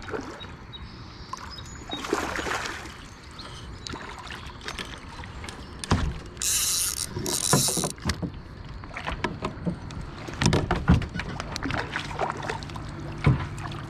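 Water splashing and knocks against a kayak as a hooked smallmouth bass is brought alongside and landed. There are two short bursts of splashing and a scatter of bumps and clicks, the heaviest about six seconds in and again near eleven seconds.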